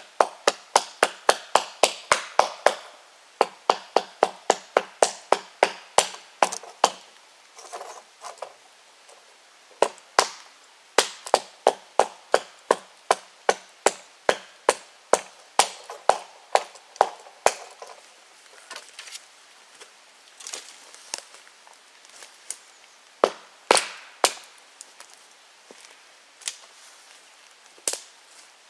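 Rapid, repeated sharp chopping strikes of a blade into wood, about three a second in long runs, then slowing to scattered single strikes over the last ten seconds.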